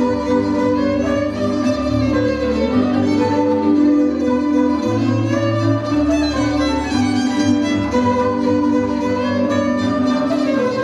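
Hungarian folk band playing live: fiddle lead over tárogató, cimbalom, viola and double bass, with steady sustained bowed tones and a bass line that moves about once a second.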